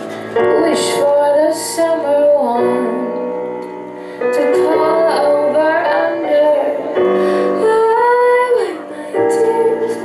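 A woman singing a slow ballad melody into a microphone over sustained keyboard chords, in phrases with short breaks between them.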